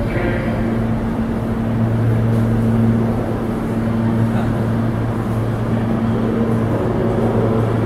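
R160 subway train standing at the station platform, its onboard equipment running with a steady low hum and a second, higher hum over a rumble. The level does not rise or fall, so the train is stopped, not moving.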